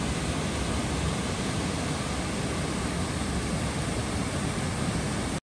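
Waterfall: a steady rush of falling water, cutting off suddenly at the end.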